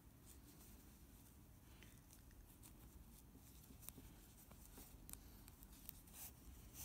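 Near silence with faint scratches and rustles of a tapestry needle and yarn being drawn through crocheted yarn fabric in a running stitch.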